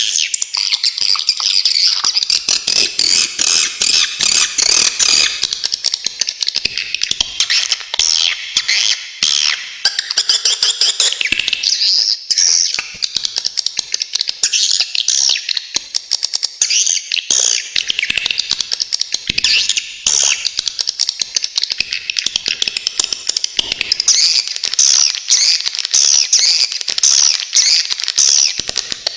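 Swiftlets calling in a continuous, dense, high-pitched twittering chatter of rapid sharp notes, the sharp chatter prized in songbird tutor recordings. Near the end a run of distinct chirps stands out, about two a second.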